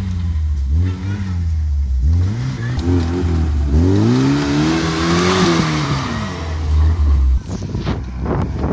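Car engine revving up and down repeatedly under load while a stuck Lada Niva is towed out on a strap, with a hissing wash in the middle of the pull. Near the end it cuts abruptly to wind buffeting the microphone.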